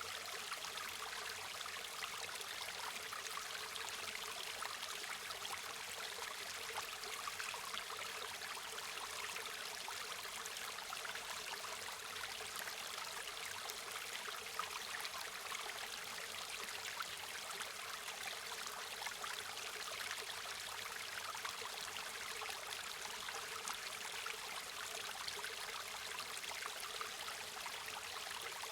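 River water flowing and trickling over rocks, a steady babbling rush.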